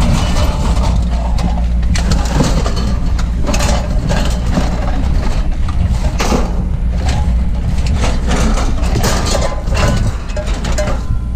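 A heavy vehicle engine idling steadily, with frequent short clanks and knocks over it.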